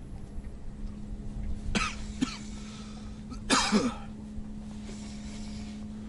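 A man coughing and clearing his throat: two short catches about two seconds in, then one louder, harsh cough a second and a half later. A faint steady hum runs underneath.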